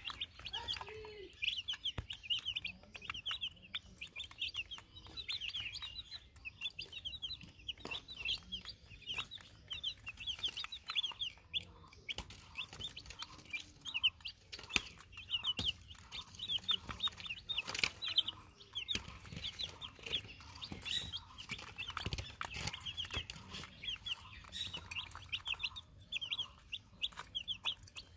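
A brood of young chicks peeping continuously, a busy chorus of short, high peeps with a few sharp clicks among them.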